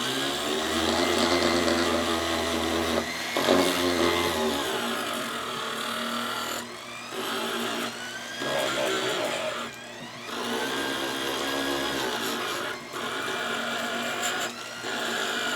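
Handheld high-speed rotary tool with a thin-edged head grinding rust and flaking plating off steel pliers right beside a rivet. Its whine dips and rises in pitch as the bit bites and eases off, with short breaks every few seconds.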